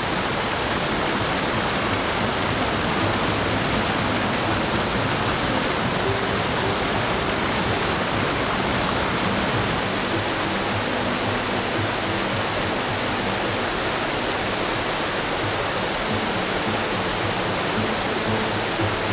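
Small waterfall cascading over rocks, a steady rush of falling water. Soft low sustained musical notes come in faintly about six seconds in.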